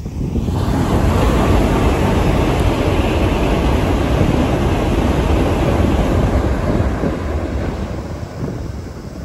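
Tokaido Shinkansen bullet train passing at speed over a steel truss railway bridge: a loud, steady rushing rumble that builds within the first second and fades over the last couple of seconds.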